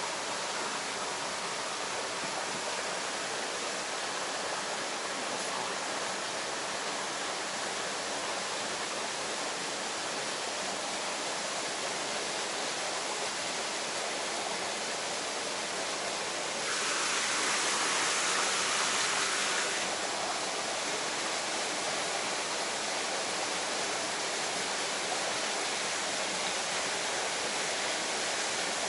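Steady rush of a creek flowing over rocks, with a louder hiss for about three seconds just past the middle.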